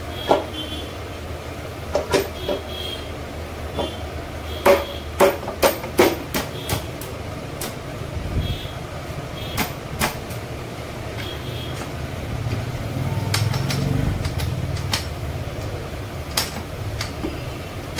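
Irregular sharp metal knocks and clinks as the aluminium crankcase half of a Royal Enfield 500 engine is lowered onto the other half and seated by hand. A low rumble swells and fades about twelve to fifteen seconds in.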